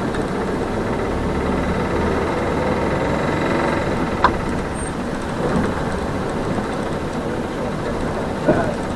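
Small city bus running, heard from inside: steady engine and road rumble, with one sharp click about four seconds in.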